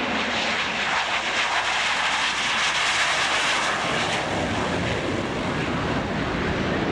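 Blue Angels F/A-18 Hornet jet flying past: a jet roar that builds, peaks about three seconds in, and falls away fairly suddenly after about four seconds.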